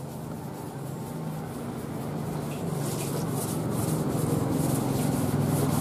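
A motor vehicle engine running and growing steadily louder as it approaches.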